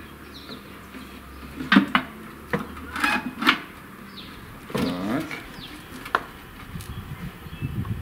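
Fish being laid into a stainless-steel bix smoker: scattered knocks and clatters against the metal grate and drum about two to three and a half seconds in, a short scrape around five seconds, and one sharp click a second later.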